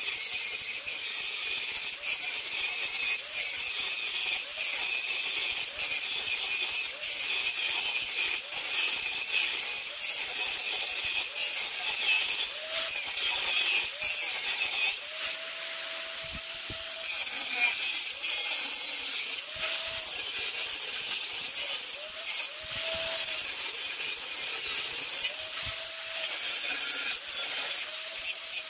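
Angle grinder with a cutoff wheel cutting through a steel-and-copper cu mai billet, a steady high grinding hiss. In the second half, short spells of the motor's steady whine come through the grinding now and then.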